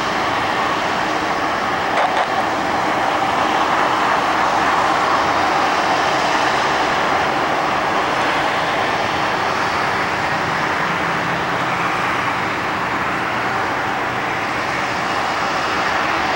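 Jet engine noise at an airport, a steady even roar with no breaks.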